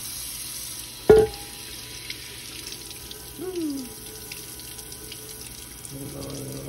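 Tap water running and splashing over a cast iron skillet in a kitchen sink as the soap is rinsed off. There is one sharp knock about a second in.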